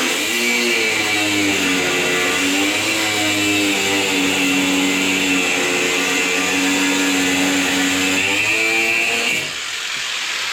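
A power grinder cutting through a wheel stud, its whine dipping in pitch and recovering as it bites under load, with a hiss from the cutting. The motor cuts out about nine seconds in.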